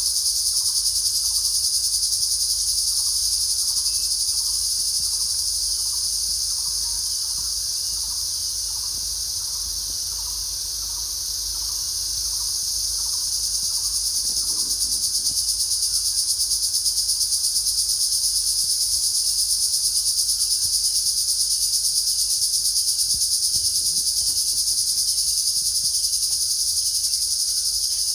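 Singing insects chirping: a loud, continuous, very high-pitched trill with a fast pulse, with a fainter, lower chirp repeating about twice a second through the first half.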